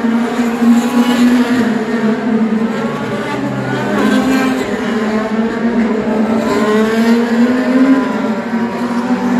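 IndyCar race cars' twin-turbo V6 engines running at speed, several at once, their pitch rising and falling as the cars accelerate through the turns and pass by.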